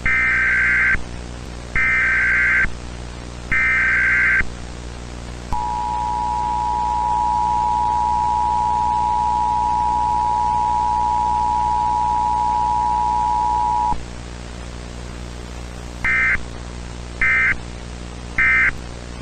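Emergency Alert System tones: three bursts of warbling digital header data, then the two-tone attention signal held steadily for about eight seconds, then three short data bursts. A constant hiss and hum lies underneath.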